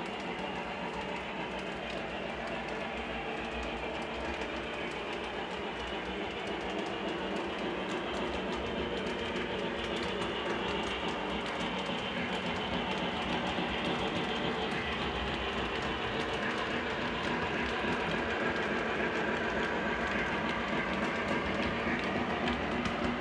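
Lionel Santa Fe 3751 O-gauge steam locomotive model and its streamlined passenger cars running over three-rail track: a steady mechanical rumble with fine clicking from the wheels, growing slowly louder as the train nears.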